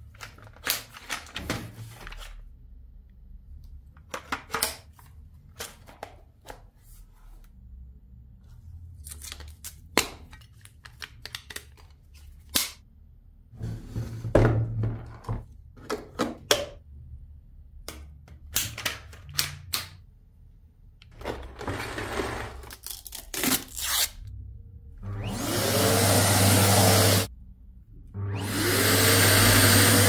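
Plastic parts of a Samsung canister vacuum cleaner clicking and knocking as the tube, hose and brush head are fitted together. Near the end the vacuum's motor is switched on twice and runs for about two seconds each time, with a steady whoosh and a whine that rises as the motor spins up.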